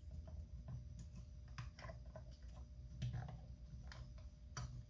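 Faint, scattered clicks and light knocks of the proton thrower's Pop Mech rail and lever being worked into the gun box by hand.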